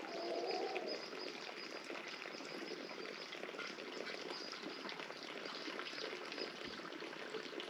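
Light rain pattering and dripping steadily, a dense crackle of small drops.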